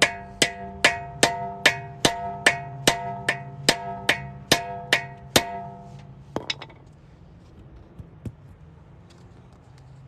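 A hammer striking a lug nut extractor socket to drive it onto a locking lug nut, each blow ringing metallically: about fourteen strikes at a steady two or three a second, stopping about five and a half seconds in, then a few lighter taps.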